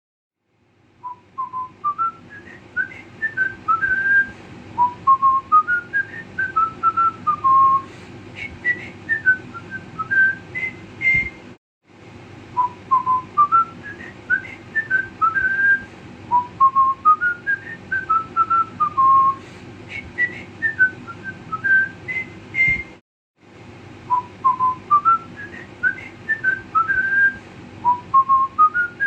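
Background music: a whistled tune of short notes in rising and falling phrases over a soft, steady accompaniment, starting about a second in. The same phrase repeats three times, each run broken off by a brief gap.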